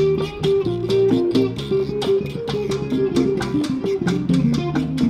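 Music with electric guitar and bass guitar playing over a steady drum beat.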